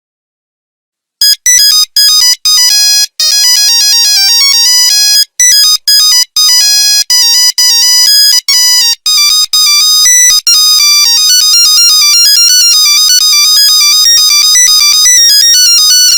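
Nokia 3310 monophonic ringtone playing a beeping melody, one buzzy note at a time. It starts about a second in with separate notes and short gaps, then runs on as a fast, nearly unbroken string of notes from about halfway through.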